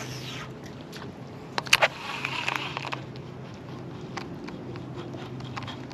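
Steady low hum of an electric trolling motor, with scattered sharp clicks and a short clatter about two seconds in from handling the fishing rod and reel.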